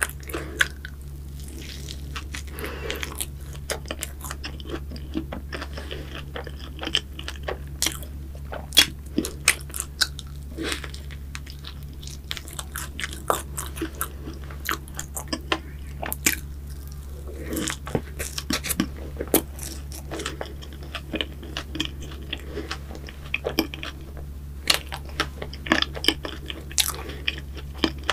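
A person biting and chewing a cream-topped croffle close to the microphone: crisp crunches and mouth clicks come irregularly throughout, over a steady low hum.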